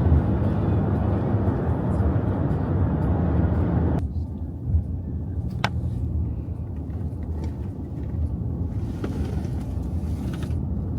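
Road and engine noise inside a moving car: a steady low rumble. It drops abruptly about four seconds in, and a single brief click follows a little later.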